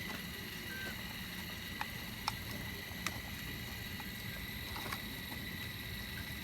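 Caterpillar heavy machine's diesel engine running steadily while digging shale, with a few sharp clicks scattered through.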